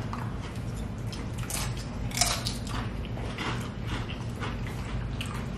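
Close-up sounds of eating: chewing and crunching with small sharp clicks, the sharpest about two seconds in.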